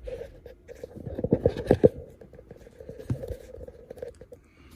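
Fingers handling a smartphone close to the microphone: a quick run of taps and light scrapes, densest in the middle, over a faint steady hum that stops shortly before the end.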